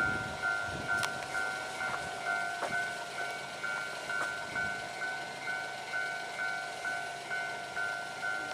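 Japanese railway level-crossing warning bell ringing steadily, an electronic ding about twice a second. The rumble of a passing train fades out within the first second, with a few sharp clacks after it.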